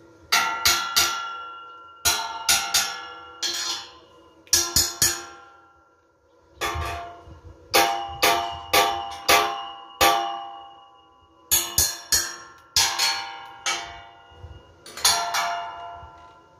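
Hammer striking a steel rebar cage, the blows coming in quick groups of two to four with short pauses between, each blow ringing on as a metallic clang.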